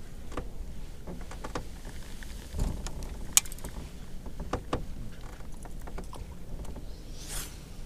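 Scattered clicks and light knocks of a baitcasting rod and reel being handled on a bass boat, with one sharp click about three and a half seconds in and a short whoosh near the end, over a steady low rumble.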